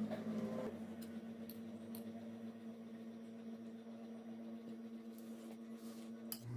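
Steady low hum with a few faint clicks and light taps as a glass bowl and plates of food are handled on the table.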